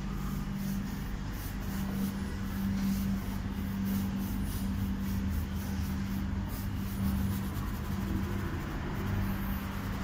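A steady low hum with a constant droning tone.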